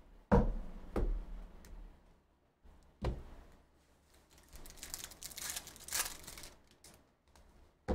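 Two sharp knocks about a second apart and another about three seconds in, then a card pack's plastic wrapper crinkling and tearing as it is ripped open.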